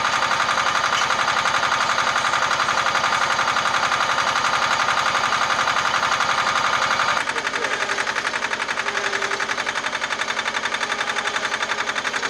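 An engine running steadily with a rapid, even pulsing beat, changing abruptly about seven seconds in to a slightly quieter version of the same sound.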